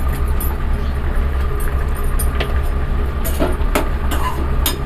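Steel slotted spatula stirring in a steel cooking pot, clinking sharply against the pot several times in the second half, over a steady low hum.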